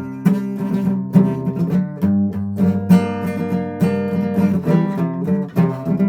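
Guitar strumming chords through an instrumental break of the song, with a change of chord about two seconds in.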